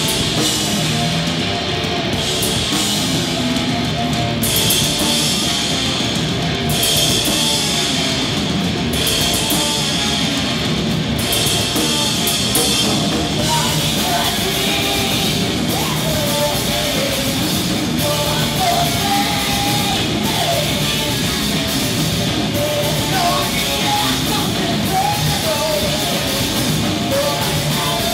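A live rock band playing loud, heavy music: distorted electric guitar, electric bass and a drum kit with cymbal crashes. About halfway through, a woman's singing voice comes in over the band.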